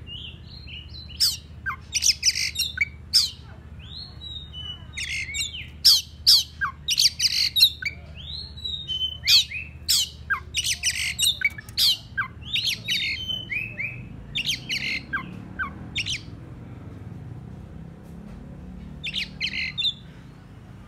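Oriental magpie-robin giving a rapid run of harsh, scolding notes mixed with short whistled slurs, with a pause near the end before a last short burst. These are the aggressive calls of a decoy bird challenging rivals.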